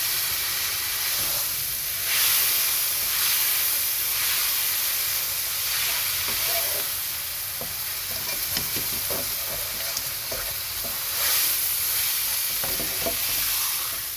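A 21-day aged Scotch fillet steak sizzling in canola oil in a hot frying pan: a steady hiss that swells twice, with scattered small crackles of spitting oil in the second half.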